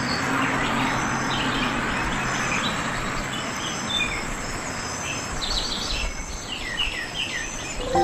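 Several birds chirping and calling over a steady insect hiss, with a quick run of short downward chirps near the end.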